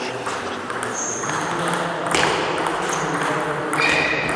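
Table tennis rally: the celluloid ball cracking off rubber bats and pinging on the tabletop in a series of sharp clicks, some with a short high ring, the strongest about two seconds in.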